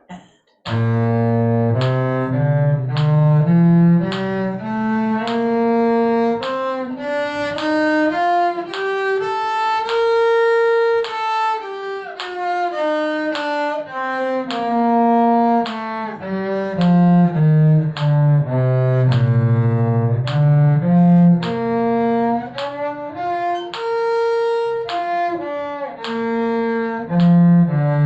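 A cello playing a two-octave B-flat major scale at a slow, even pace, bowed note by note up from low B-flat to the top and back down. Near the end it climbs and falls again in quicker steps.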